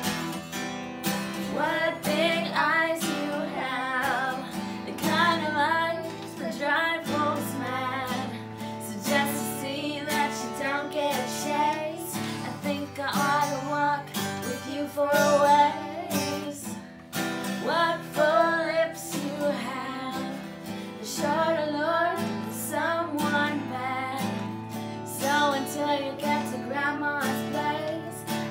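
Takamine acoustic guitar strummed in a steady rhythm while a woman and a boy sing together.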